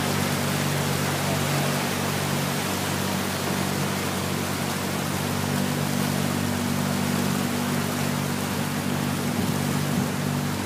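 Small motorboat's engine running at a steady pitch, with a constant rushing hiss as the boat moves through floodwater.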